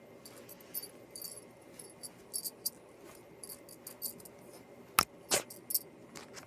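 Small metal tags or a bell jingling in quick, short bursts, with a sharp click about five seconds in and a brief burst of noise right after.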